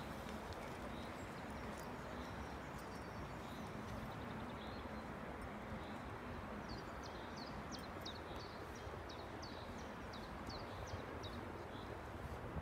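Steady outdoor background noise, with a small bird chirping a quick run of short, high, falling notes through the second half.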